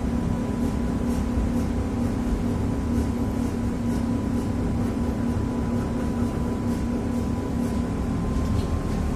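Tatra T3SUCS tram running, heard from inside the passenger cabin: a steady low hum and rumble from the motors and the wheels on the rails. Over it sits a thin steady whine that rises slightly near the end.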